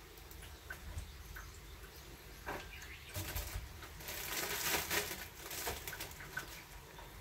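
Light clicks and knocks of things being handled in a kitchen, with a louder rustling hiss from about three to five and a half seconds in.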